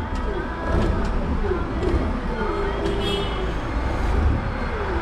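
Toyota counterbalance forklift running, heard from the driver's seat: a low rumble with a pitch that rises and falls again and again as the hydraulic levers are worked. A brief higher squeal comes about three seconds in.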